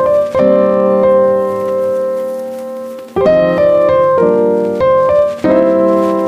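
Background music of piano chords: a chord held and fading for nearly three seconds, then a quicker run of chord changes.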